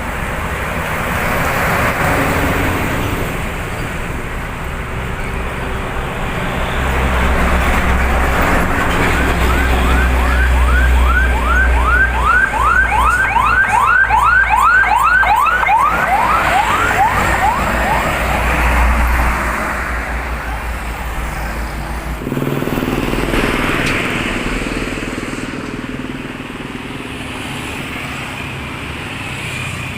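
Motorbikes and cars passing on a road. Midway a passing vehicle sounds a siren in a fast yelp, about three quick rising whoops a second for several seconds, over a deep engine rumble.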